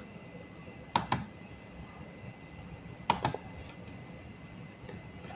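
Computer keyboard and mouse clicks: a quick pair of clicks about a second in, another pair about two seconds later, and a few faint clicks near the end, over a low steady hiss.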